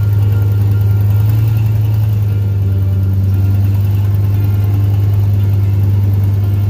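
A vehicle driving slowly along a dirt track: a steady engine drone with tyre noise, picked up by a camera mounted low on the vehicle's side beside the front wheel.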